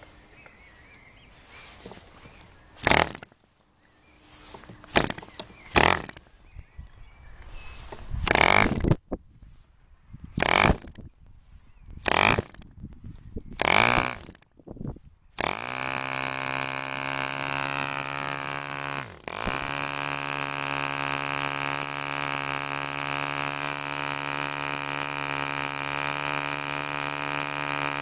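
DC Wildcat 5cc model diesel engine being hand-started by flicking the propeller: about seven short bursts of firing that each die out, then about halfway through it catches and runs steadily. A few seconds after catching it falters briefly with a dip in pitch, then recovers to an even run.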